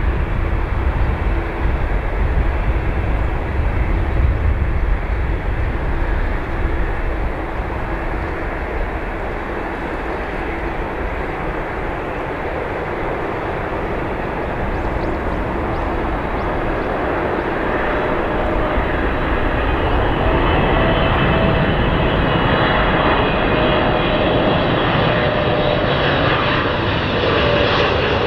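Jet airliner engines running: a low rumble eases over the first ten seconds, then a whining engine tone grows louder through the second half and dips slightly in pitch near the end.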